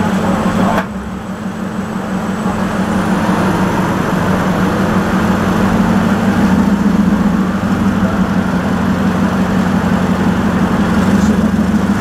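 Vehicle engine idling with a steady low hum, a little louder after the first few seconds.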